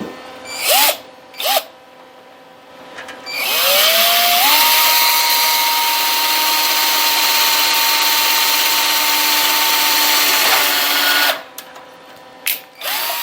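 Electric drill with a number 30 bit drilling a hole through sheet metal. Two short trigger blips come first. Then the motor spins up with a rising whine and runs steadily for about eight seconds before stopping, with one more brief blip near the end.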